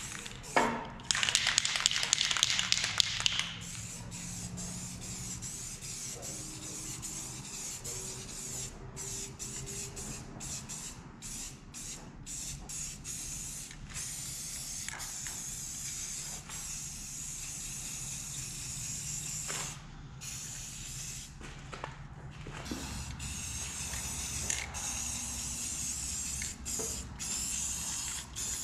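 Aerosol spray-paint can hissing in repeated bursts with short pauses as black paint goes onto a welded steel receiver hitch. A louder rattling clatter fills the first three seconds, and a low steady hum runs underneath.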